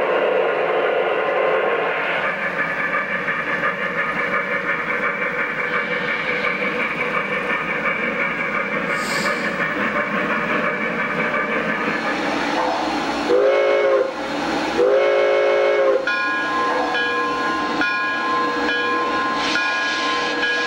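O gauge model steam locomotives running on three-rail track, with the sound system's steady running noise. Two steam-whistle blasts come a little past the middle and are the loudest moments. After them, held tones continue to the end.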